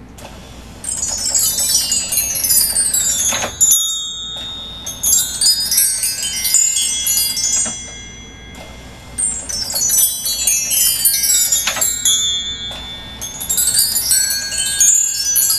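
A motor-driven Mark Tree doorbell rings: a striker sweeps along the row of hanging chime bars, giving shimmering glissando runs of high, ringing tones. It plays four sweeps in two pairs, with a pause of about a second between the pairs.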